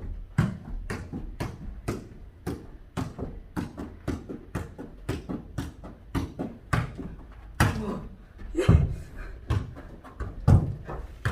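A ball being kicked and bouncing on the floor in a mini foot-volleyball (jokgu) rally: a steady run of sharp thuds, two or three a second.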